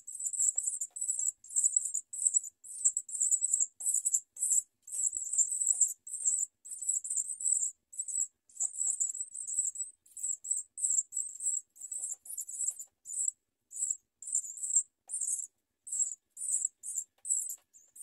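Baby birds begging: a rapid, very high-pitched cheeping in short bursts, two or three a second, with no pause longer than a moment.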